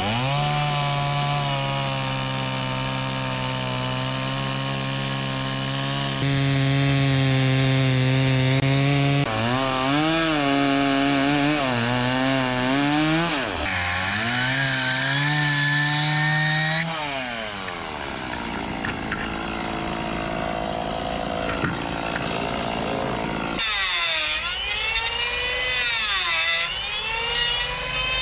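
Chainsaw ripping lengthwise through a thick timber, its motor holding a steady note that dips and recovers as the chain bites into the wood. Over the last few seconds the sound turns to a quieter whine that wavers up and down.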